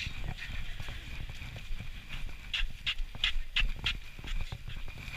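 Footsteps of people walking on a paved path, with a low rumble from the camera jostling as it is carried. A quick run of crisp ticks, about three a second, comes a little past halfway.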